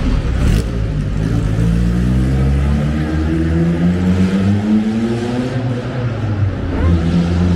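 Vintage car engine running close by, its pitch climbing slowly as it accelerates, then easing off and settling to a steady note near the end.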